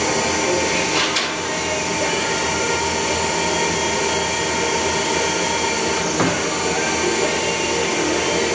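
Steady hum and whine of a Dahlstrom single-tangent frame bender and its shop machinery, with a metal clack about a second in and another around six seconds in, as a roll-formed sheet-metal frame profile is slid into place and the bend begins.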